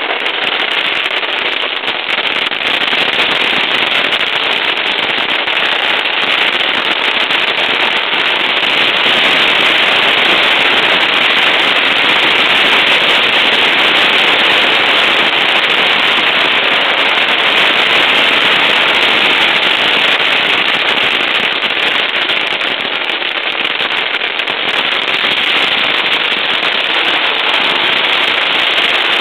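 Strings of firecrackers going off en masse in a dense, unbroken crackle of countless small bangs, loud and steady throughout.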